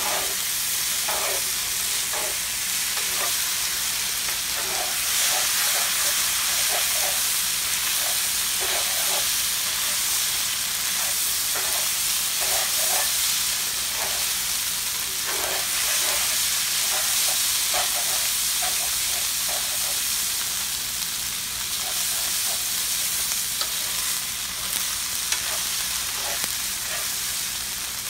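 Rice vermicelli and cubes of boiled pork blood frying in a pan with a steady sizzling hiss, while chopsticks stir and toss the noodles with frequent short irregular scrapes and taps.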